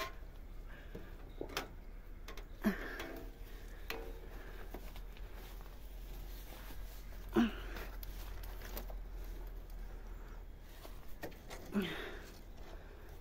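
Quiet steady hum and faint rustling, broken three times by a short, brief vocal sound, about three, seven and twelve seconds in.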